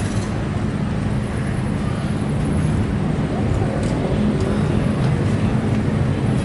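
Steady low rumble of idling motor-vehicle engines.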